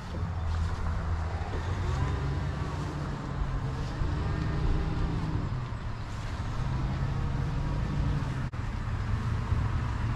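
A motor vehicle's engine running, a steady low drone whose pitch rises and falls.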